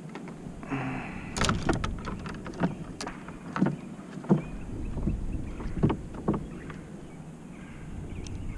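Scattered hollow knocks and taps on a plastic fishing kayak as rods and gear are handled aboard, with a low rumble underneath.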